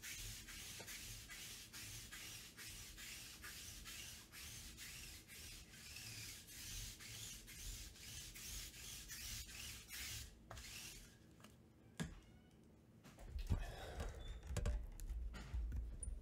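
Sticky lint roller rolled across a cloth table mat: a steady rubbing rasp with regular ticks about three times a second, stopping about eleven seconds in. Then a single click and some handling knocks near the end.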